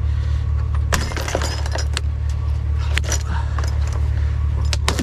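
Vehicle engine droning low and steady inside the cab while the vehicle turns around and backs up, with frequent light metallic jingles and clicks from loose things rattling.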